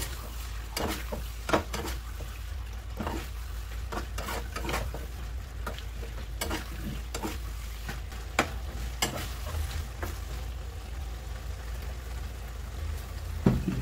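A steel spoon scraping and clinking around a frying pan as a watery onion-tomato masala is stirred, the masala sizzling as it cooks. Irregular strokes over a steady low hum.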